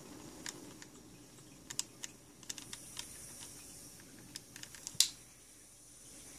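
Freshly lit butane soldering iron hissing faintly as its gas burns with open flame, before the catalytic tip takes over. Scattered light clicks sound over the hiss, the sharpest one about five seconds in.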